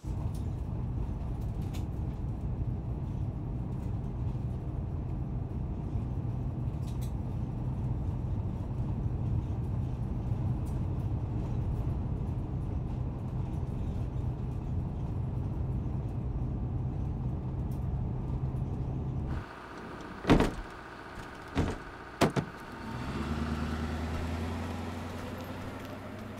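Steady low engine drone heard from inside a moving bus. About two thirds of the way in it gives way to three sharp knocks, then an engine starts up and rises in pitch as the vehicle pulls away.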